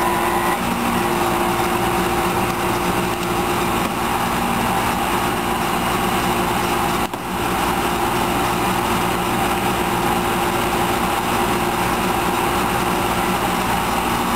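Small gasoline engine of a hydraulic rescue-tool power unit running steadily at a constant speed.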